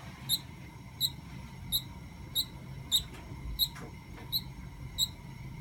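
A pet bird sick with avian gastric yeast gives short, high squeaks at an even pace, about three every two seconds; the owner suspects an illness besides the yeast.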